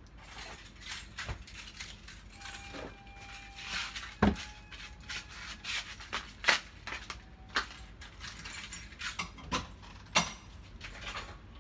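Bubble wrap being handled and pushed into a cardboard box, rustling and crinkling with irregular sharp clicks. There is a louder knock about four seconds in.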